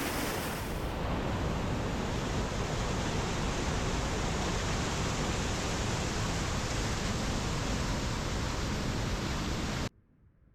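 Steady, loud rush of water, an even roar with no distinct events, which cuts off suddenly near the end.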